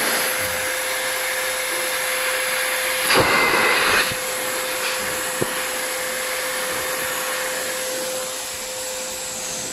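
Household vacuum cleaner run as a blower, pushing air through its hose into the valve of an inflatable kids' pool: a steady motor whine over rushing air. It is briefly louder about three seconds in, with a single click a little later.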